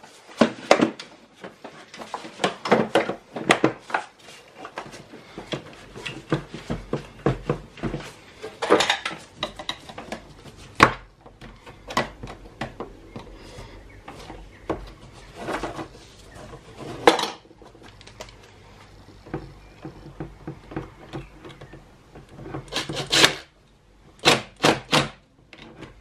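Hard plastic air box housing being fitted by hand: irregular clicks, knocks and rubbing of plastic parts, with a quick cluster of sharper clicks near the end.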